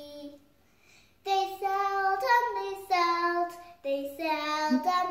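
A young girl singing a children's song on her own, without accompaniment, in long held notes, with a short pause about a second in before the next phrase.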